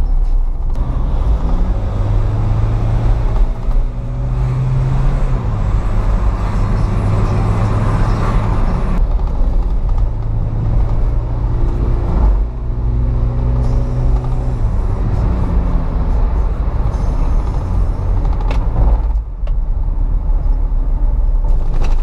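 Remapped Toyota Innova's engine and road rumble heard from inside the cabin while driving. The engine hum holds steady, breaks off a few times and comes back.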